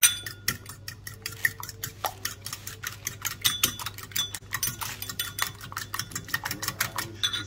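A metal fork whisking a raw egg in a ceramic bowl, clinking quickly against the bowl's sides several times a second.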